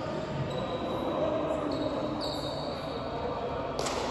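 A single sharp volleyball impact near the end, echoing through a large sports hall, over indistinct chatter of players.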